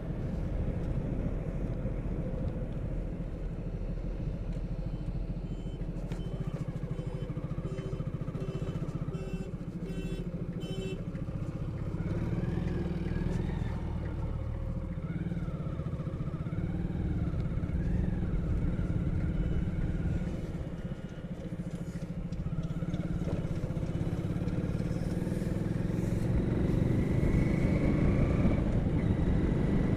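Motorcycle engine running at road speed while riding, its note rising in pitch near the end as the bike speeds up. A run of short beeps sounds briefly about a third of the way in.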